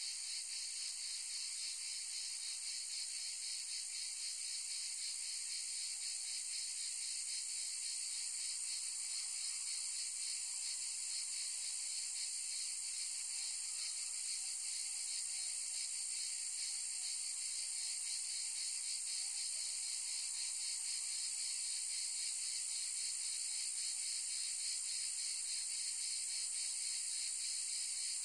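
Dense, steady high-pitched insect chorus: a continuous buzzing hiss with a fine rapid pulse.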